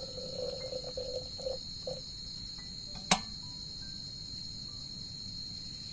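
Crickets chirping steadily in a continuous high-pitched chorus, with brief handling sounds in the first two seconds and a single sharp click about three seconds in.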